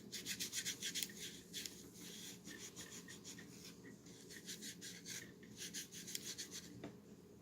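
Quick back-and-forth rubbing strokes on a pistol's parts during cleaning, in three runs with short pauses between them.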